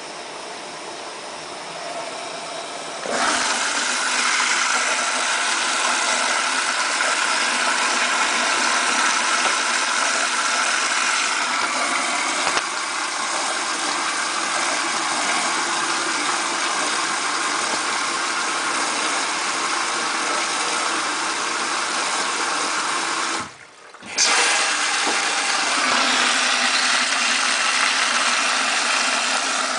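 Samsung WF8804RPA front-loading washing machine filling for the wash: water starts rushing in with a loud steady hiss about three seconds in, cuts off for under a second near the end, then starts again.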